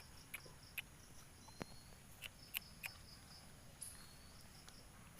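Quiet outdoor ambience: faint insect trilling, with about six short, sharp clicks scattered through it.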